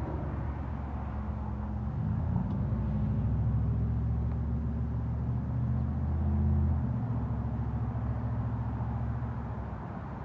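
A 2012 Chevrolet Cruze LTZ RS idling, a steady low engine hum that grows louder for a few seconds in the middle and drops back about seven seconds in.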